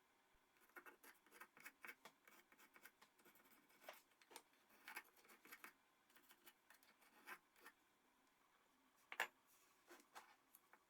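Faint, irregular light clicks and scrapes of hand work on a small metal part, with one sharper click about nine seconds in.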